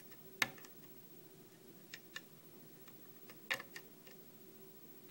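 Faint, sharp metallic clicks from a hook pick working the pin stacks of a brass Mallin five-pin cylinder lock under tension, with the core held in a false set. About six clicks at uneven intervals, the loudest about half a second in and a small cluster around three and a half seconds.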